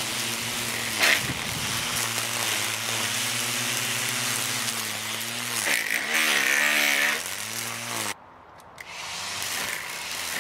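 Cordless electric string trimmer running, its motor whine with the hiss of the nylon line cutting grass. The pitch dips and wavers about six to seven seconds in, and the sound drops away abruptly a little after eight seconds before picking up again.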